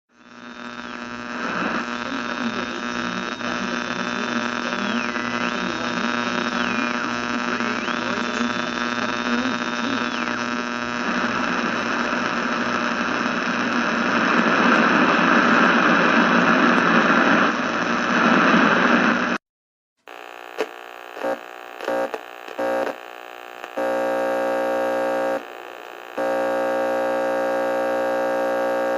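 A radio being tuned: static hiss and hum with thin whistling tones that slide up and down as the dial moves between stations. After a brief cutout, a buzzing hum switches on and off several times, then holds steady.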